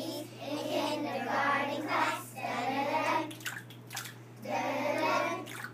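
A group of young children singing a song together in phrases with short pauses between them, with a few short clicks in a pause near the middle.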